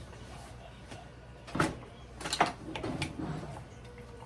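A few short knocks and clatters, like a door or cupboard being handled, over a faint steady low hum.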